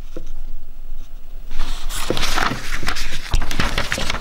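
Paper pedigree sheets being handled and a page turned over, a dense rustling and crinkling full of small crackles that starts about a second and a half in.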